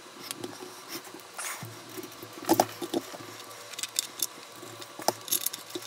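Scattered light clicks and taps of small plastic parts and a hand tool being worked. A few sharper snaps come about two and a half seconds in and again about five seconds in.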